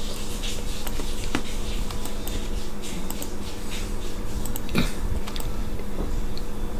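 Scattered light clicks of a computer mouse and keyboard, a sharper click near the end, over a steady low electrical hum.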